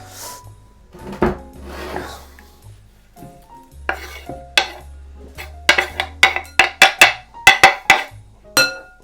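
A kitchen utensil striking a bowl or pan over and over in a quick run of sharp, ringing clicks, about four or five a second, after some softer scraping, with background music playing throughout.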